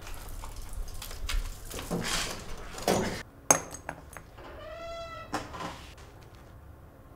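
Several rustling, breathy noises, then a sharp click about halfway through, followed by a short high-pitched cry that rises and falls in pitch.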